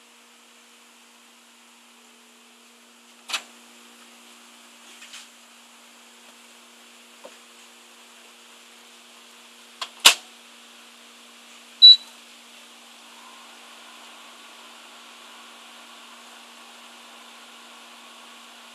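Panasonic commercial microwave oven being loaded and started: a few knocks and clicks as the tray goes in, a loud clack as the door shuts about ten seconds in, one short keypad beep, then the oven running with a steady hum and fan noise.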